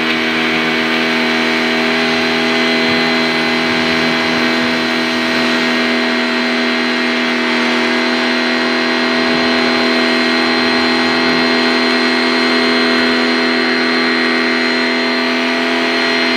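Kawasaki ACK 302 electric pressure washer running steadily under load: a constant motor-and-pump hum with a fixed pitch, together with the hiss of its water jet as it rinses soap off a car.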